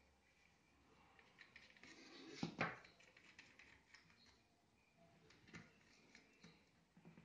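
Faint clicks and rustles of plastic drip-irrigation tubing and fittings being handled with cloth gloves, a small fitting pushed into the end of a black tube, with a louder knock about two and a half seconds in.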